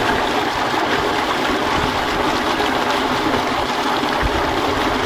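Steady gush of water pouring from a tube well's outlet pipe into a concrete irrigation channel, driven by the well's electric motor pump.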